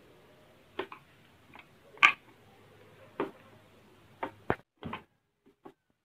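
Irregular sharp clicks and taps of a small flat screwdriver tip picking the silicone coating off around components on a washing-machine control circuit board, about seven in all, the loudest about two seconds in and several close together between four and five seconds, over a faint low hum.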